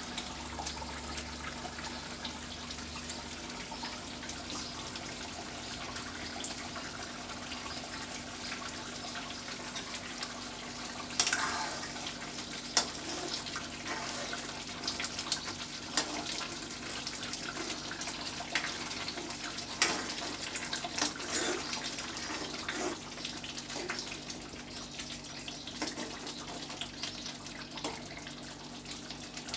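Egg masala curry in a kadai simmering on a lit gas burner, with a steady bubbling hiss. From about ten seconds in, a metal spoon stirs the curry and knocks against the pan now and then.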